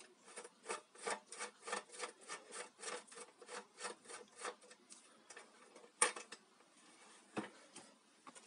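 Flat-head screwdriver scraping and prying at the edge of a single-burner electric hotplate's top cover, in quick repeated strokes about four a second. A sharp click about six seconds in, and a softer one about a second later.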